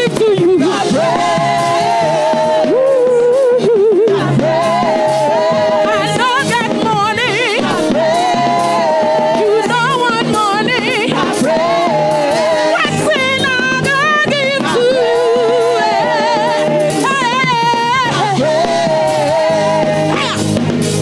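Live gospel praise music: a singer's voice sustained with wavering vibrato runs over a band with drums and keyboard, with no words the recogniser could catch.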